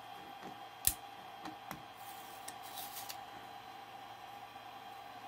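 Thin 3D-printed plastic tail parts being handled and lifted off a 3D printer's bed: a sharp click about a second in, a few lighter clicks, then a brief scraping near the middle. A steady hum, such as the printer's fan, runs underneath.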